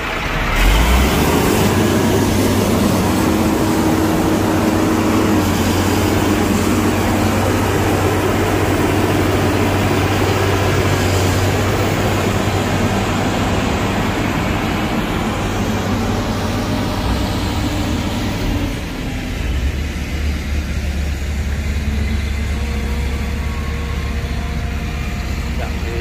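Heavy diesel engine of earthmoving machinery running hard, with a rumble and mechanical noise. About nineteen seconds in the higher noise falls away and it settles to a lower, steadier rumble.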